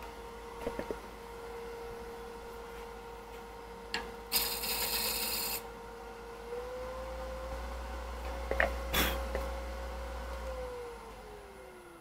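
Wood lathe running with a steady motor moan, its pitch stepping up slightly about six and a half seconds in and sliding down near the end as the lathe slows; the moan comes from the VFD-driven motor being run on its slow bowl-speed setting. A turning tool cuts the spinning wood blank in a rasping burst of about a second, around four seconds in, with a few knocks.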